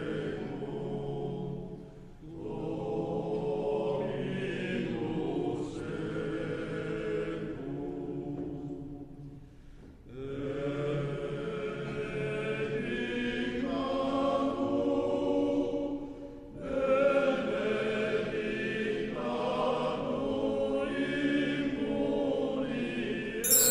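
Voices chanting rosary prayers in Chinese, in the traditional sing-song recitation on a steady pitch, in long phrases broken by short pauses.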